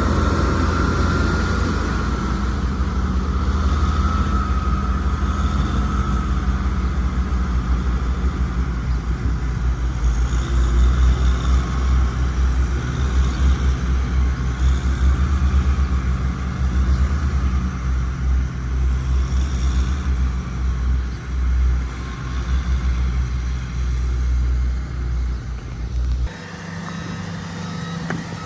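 HD850 motor grader's engine running under working load, a deep rumble whose level rises and falls. About 26 seconds in the heavy rumble drops away abruptly, and short, evenly repeated beeps start near the end.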